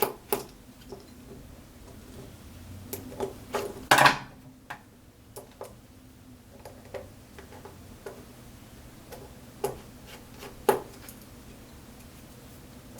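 Small metallic clicks and knocks as a lock and its parts are handled: a quick cluster about a third of the way in, then a couple of single clicks later.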